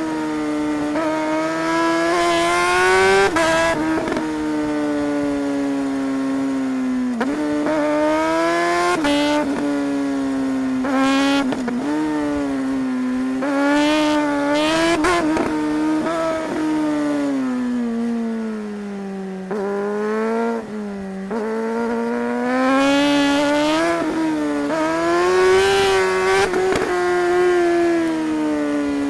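Suzuki GSR 600's inline-four engine under way, pulling up through the revs and rolling off again and again, with brief dips where gears change and pitch rising and falling.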